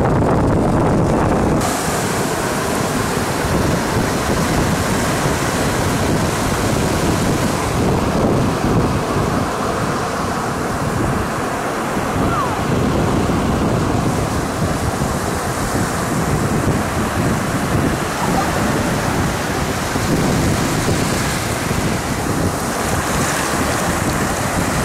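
Ocean surf breaking and washing up a sand beach in a steady wash of noise, with wind buffeting the microphone.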